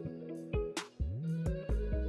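Background music with a beat and bass notes that slide up and down in pitch.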